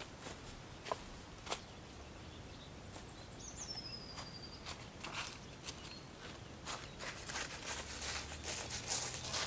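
Footsteps crunching in snow, starting about two-thirds of the way through and getting busier toward the end. Before them there are a few sharp isolated clicks and one thin, high whistle that slides down in pitch.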